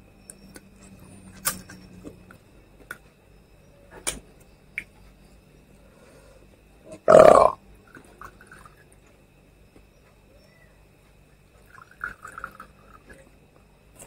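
Quiet table sounds: a few light clicks and knocks of glass and dishes, one short, loud sound about seven seconds in, then whisky trickling from a bottle into a glass, faintly, twice.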